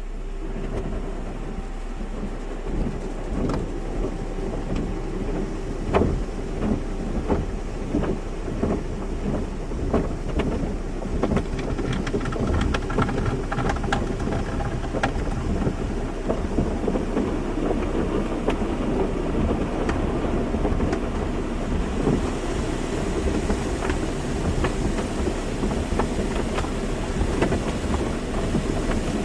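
Automatic car wash: water spray pattering and drumming irregularly on a car's body over a steady hum of wash machinery, with a few louder knocks.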